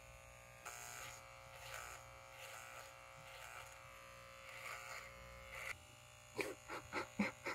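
Electric beard clippers buzzing steadily while cutting through a long beard, with a shifting rasp as the blades work through the hair. A quick run of short clicks comes near the end.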